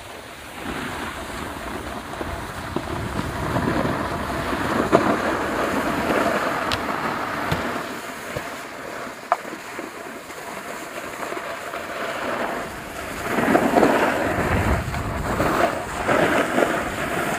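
Rushing wind on the microphone and the scraping hiss of a snowboard edge sliding over packed snow. It swells louder about two-thirds of the way through, and there are a couple of short sharp knocks.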